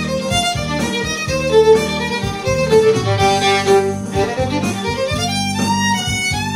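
Solo violin bowing a lyrical melody of sustained and stepping notes, over a recorded backing accompaniment with steady low tones and a regular beat.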